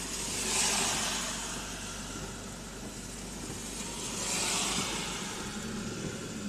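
Inside a car in rain, stuck in slow traffic: a steady wash of rain and wet-road noise over a low engine hum. Two swishing swells rise and fade, about a second in and again about four seconds later.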